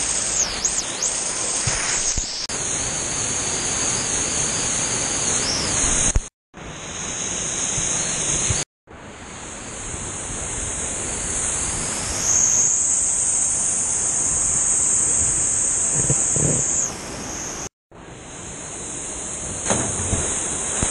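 Waterfall and rushing water of a swollen mountain river, a steady loud hiss heard close up. It drops out briefly three times.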